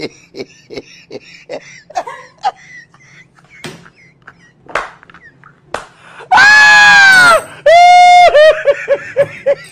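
Scattered short clicks and taps, then, about six seconds in, a very loud high cry that falls in pitch. A second loud cry follows and breaks into rapid, falling bursts of laughter, about five a second.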